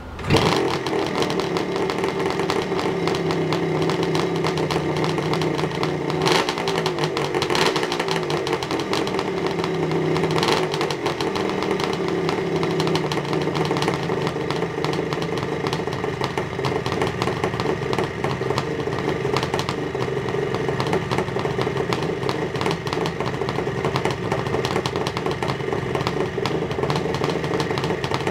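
Kawasaki H2 750SS Mach IV's air-cooled two-stroke three-cylinder engine starting and catching at once. It is revved briefly a couple of times, then settles to a steady idle.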